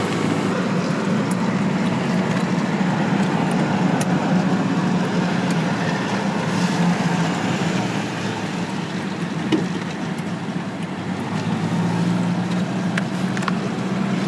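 Car engine and road noise heard from inside the cabin while driving, a steady drone that eases slightly about eight seconds in and picks up again a few seconds later.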